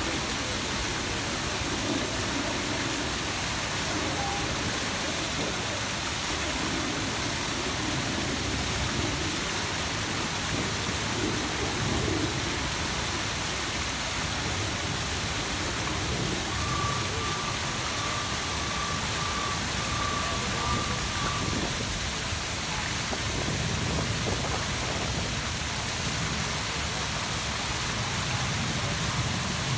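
The Grand Cascade fountains and the Samson fountain's tall central jet splashing down into the pool: a steady, even rush of falling water.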